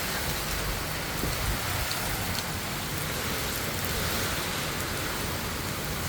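Steady downpour of rain from Hurricane Ian, an even rushing hiss with a few faint ticks.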